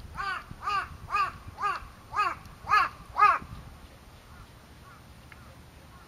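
A crow cawing: a run of seven harsh caws, about two a second, getting louder, stopping about three and a half seconds in.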